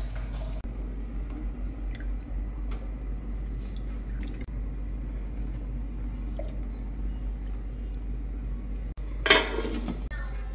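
Light water sloshing and small knocks as pieces of cow skin are handled in an aluminium pot of water, over a steady low hum. About nine seconds in, a loud metallic clatter as the aluminium lid goes onto the pot.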